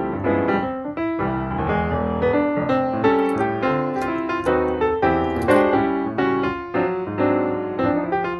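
Piano music, a quick run of notes with several notes a second.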